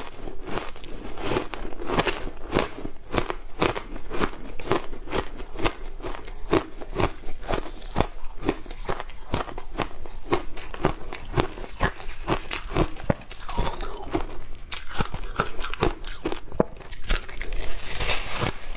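Frozen matcha ice being bitten and chewed close to the microphone: a quick run of sharp crunches, several a second. Late on they give way to a finer crackle as the ice breaks down.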